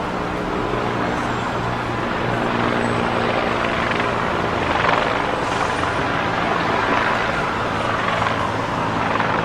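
Loud street noise: engines running steadily, with a siren sweeping up and down near the end.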